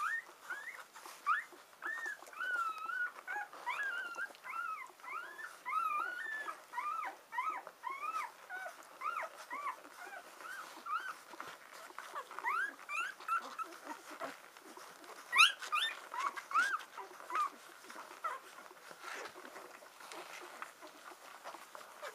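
Six-day-old husky puppies squeaking and whimpering while they nurse: many short, high squeaks, each rising and falling in pitch, coming thick and fast over the first half, then thinning out, with one louder squeak a little past the middle.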